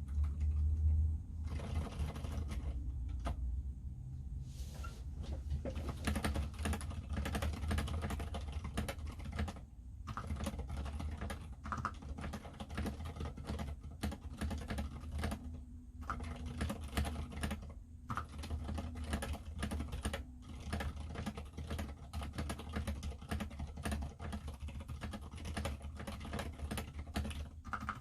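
Typing on a mechanical keyboard with unlubed Zilents v2 67g silent tactile switches, PBT keycaps and an aluminium plate in a plastic Tada68 case: a quick, steady stream of keystrokes, broken by short pauses about ten and sixteen seconds in.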